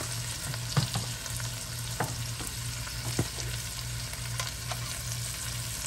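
Onions and green bell peppers sizzling as they sauté in butter in a stainless steel pot, with a few light clicks and a steady low hum underneath.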